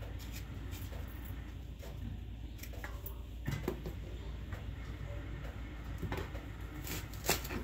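A kitchen knife cutting onions on a plastic cutting board: a few scattered knocks of the blade on the board with faint handling sounds between, the sharpest knock near the end.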